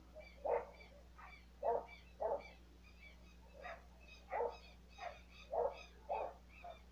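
An animal calling in short, loud notes, about one or two a second at irregular spacing, over a fainter, steady run of high chirps.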